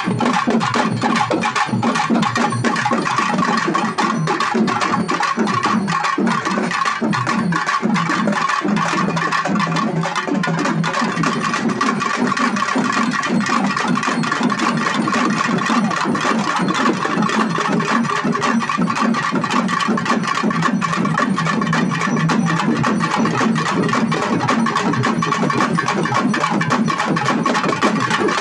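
A troupe of large stick-beaten festival drums playing together in a fast, steady, dense rhythm.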